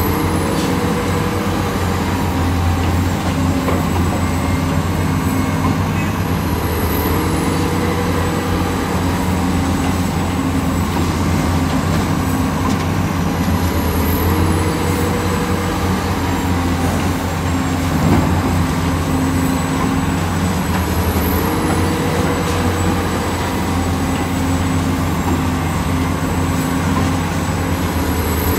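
Heavy diesel excavator engine running steadily under working load: a low drone with a short upward step in pitch about every seven seconds.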